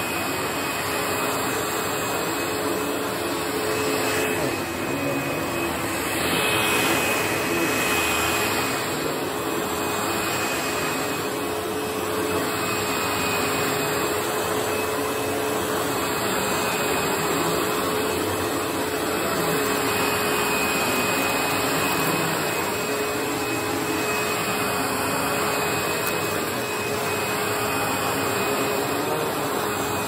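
Panasonic MC-V5005 bagged upright vacuum cleaner with a 12-amp motor running steadily while it is pushed over carpet: a constant rush of air with a steady high tone and a lower hum, swelling slightly about six seconds in.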